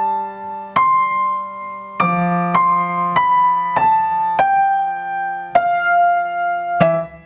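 Grand piano played slowly with both hands: a right-hand melody of single notes, struck about every half second and stepping mostly downward, over a low left-hand note that is held. The playing stops just before the end.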